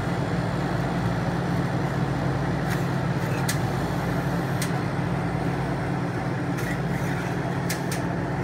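A steady low mechanical hum, with a few light, sharp clicks of metal spatulas on a steel cold plate as frozen ice cream is scraped up into rolls.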